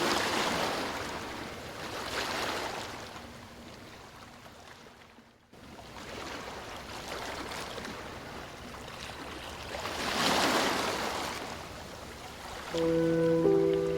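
Ocean waves washing up a beach, the surf noise swelling and falling back in slow surges. The sound drops out almost entirely for a moment about five seconds in. Soft music with long held notes comes in near the end.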